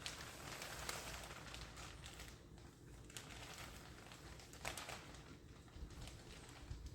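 Plastic greenhouse sheeting rustling and crinkling as it is handled and pulled over the frame, with scattered short crackles and clicks.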